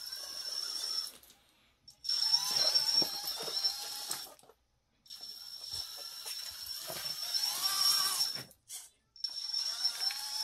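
Brushless outrunner motor (Team Brood Riot S 2000kv) on an AM32-firmware ESC driving a belt-drive RC crawler, with mechanical drivetrain noise. A high steady whine sits over a lower whine that rises and falls as the throttle changes. The sound cuts out completely three times.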